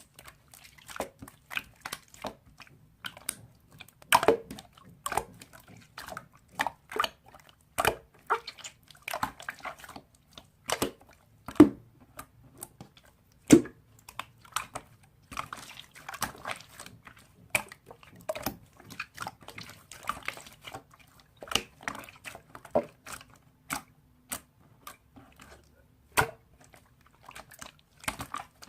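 Slime being squeezed and pressed by hand, giving irregular wet squishes and sharp sticky pops and clicks, a few of them much louder than the rest.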